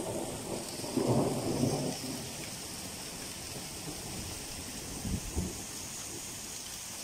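Heavy rain falling steadily, with a rumble of thunder about a second in and a shorter one near the end.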